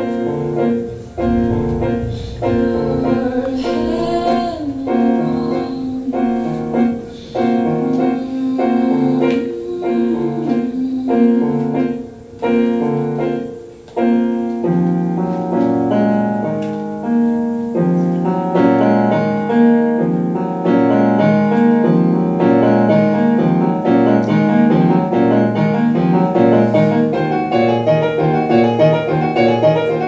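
Kurzweil digital stage piano played live in a piano voice: slow chords over a bass note struck about once a second, then from about halfway the playing grows fuller and busier, with running notes over a deeper bass.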